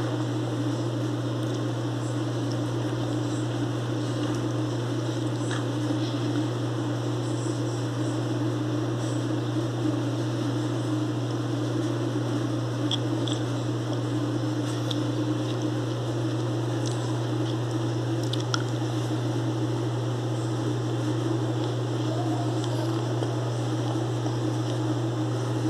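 A steady low machine hum runs throughout, unchanging in level, with a few faint clicks scattered through it.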